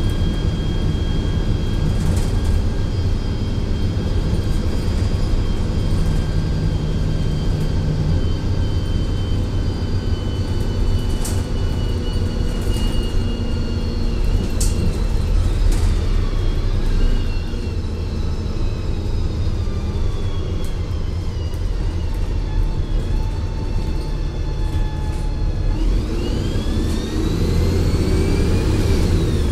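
A 2004 Gillig Advantage bus with its Cummins ISL diesel engine and Voith D864.3E transmission running: a steady low drone with whining tones that slide down in pitch about halfway through and climb again near the end. A few sharp clicks are heard along the way.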